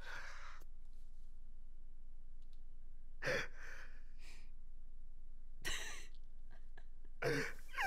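A person's short breathy exhalations, about four of them a couple of seconds apart, over a faint steady hum.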